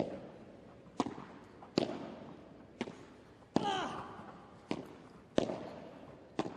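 Padel rally: a ball struck back and forth with solid padel rackets and bouncing off the court and glass walls, as sharp pops about one a second, each ringing briefly in a large hall.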